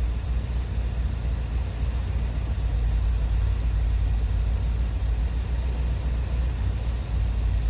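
1981 Corvette's 350 V8 idling steadily while its carburetor idle is being adjusted.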